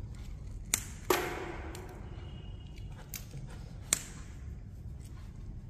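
Small cut mirror-glass pieces clicking and clinking as they are handled and pressed into a wall mosaic: a few sharp ticks, one with a brief glassy ring, over a low steady hum.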